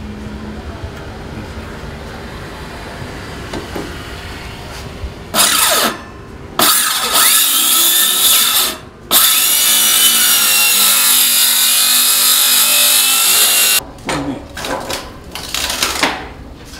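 Handheld electric circular saw cutting a wooden board: a short cut about five seconds in, then two long, loud cuts, the motor's whine shifting in pitch as the blade works through the wood, stopping sharply near the end.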